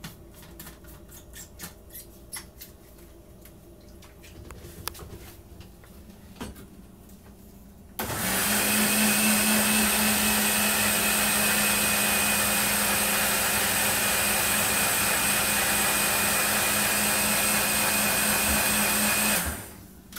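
Countertop blender motor running steadily at a single speed, blending chopped asparagus in water: it starts abruptly about eight seconds in, holds a constant hum and whine for about eleven seconds, then is switched off. Before it starts, a few light clicks and knocks as the blender jar is handled.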